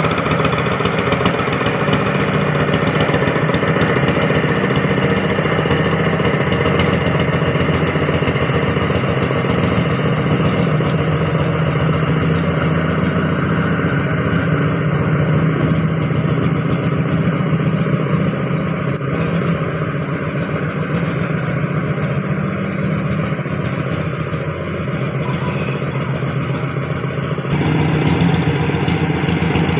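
An engine running steadily with a fast, even pulse; its sound changes abruptly near the end.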